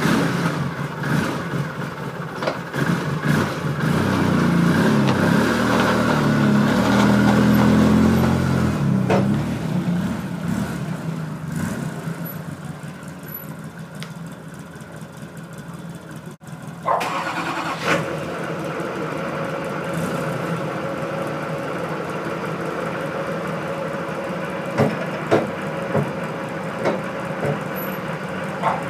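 Polaris Sportsman 700 ATV engine revving hard under load as it strains against a tow strap to pull a pickup truck. It is loudest about eight seconds in, then eases off. After a cut, an engine runs steadily, with a few sharp clicks near the end.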